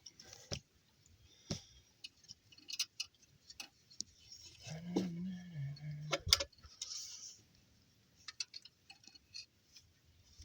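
Scattered metal clicks and knocks of tools and a pry bar being worked in an engine bay, levering the alternator back to tension the drive belt. About five seconds in comes a short low voice sound of about a second, like a strained grunt.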